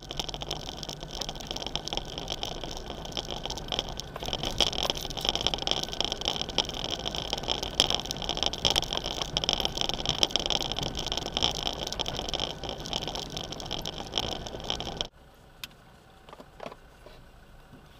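4x4 vehicle driving on a gravel track: engine hum under a steady loud noise of tyres on gravel and many small knocks. After about fifteen seconds it cuts abruptly to a much quieter engine hum with a few clicks.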